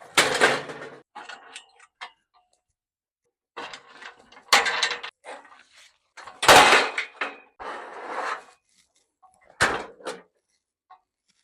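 Scaffolding being shifted: irregular bursts of scraping and clattering, with sharp knocks about four and a half, six and a half and nearly ten seconds in.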